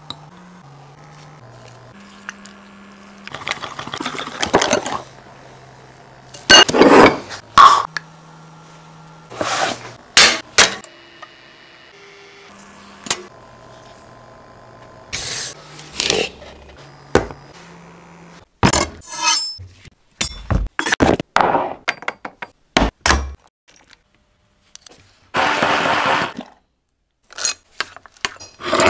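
Kitchen utensils clinking, scraping and stirring in glass bowls, heard as a string of short separate sounds.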